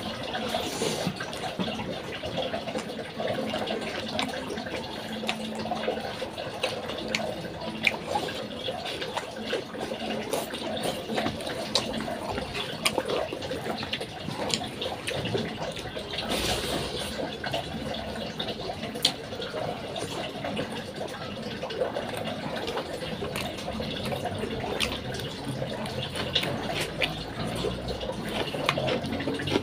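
Wet chewing and lip-smacking of a person eating rice and fish curry by hand, a steady run of small moist clicks and squelches.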